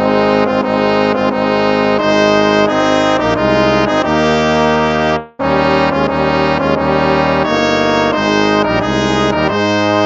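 Instrumental hymn tune played with a brass sound, held chords moving from note to note. It starts abruptly and breaks off briefly a little over five seconds in before going on.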